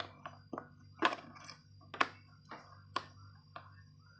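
Drill bits and a plastic accessory case being handled: a series of sharp clicks and light clinks, one about every half second.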